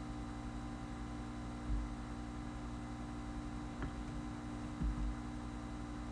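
Steady electrical mains hum with hiss on the microphone during a pause in narration, with three faint low knocks spread through it.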